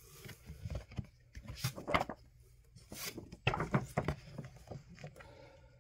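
Comic books being handled in a cardboard box: irregular rustling and sliding of glossy paper covers with a few light knocks against the cardboard.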